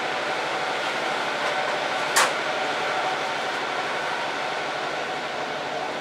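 KiHa 40 diesel railcar heard from inside the cabin, its engine and running gear making a steady drone. A single sharp click about two seconds in.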